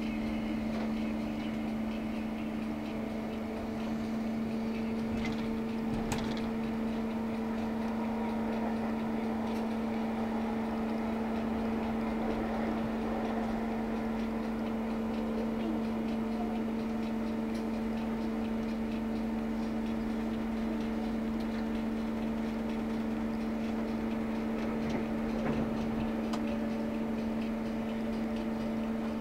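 Inside a moving passenger train carriage: a steady rolling rumble with a constant electrical hum.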